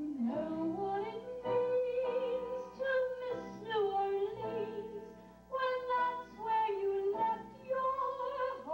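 Banjo band playing live, with a melody of held notes that slide from one pitch to the next over the accompaniment.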